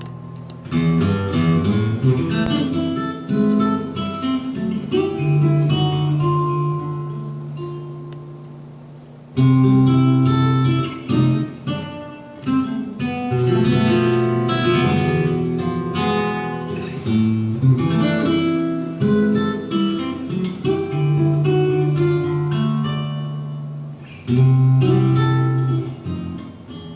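Acoustic guitar music: plucked melody notes and strummed chords in phrases, with fresh loud entries about a second in, around nine seconds in and near the end.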